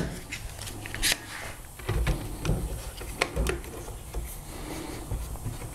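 Handling noise of a plastic cordless leaf blower on a plywood workbench: scattered knocks and clicks as a clamp is fitted to its handle. The blower's motor is not running.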